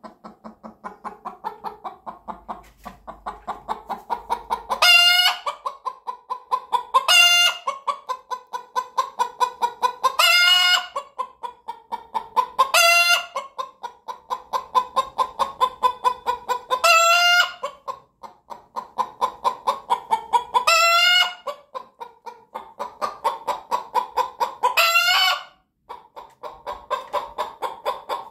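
White Leghorn hen's egg song after laying: a long run of quick clucks, about four or five a second, broken every two to four seconds by a loud drawn-out squawk.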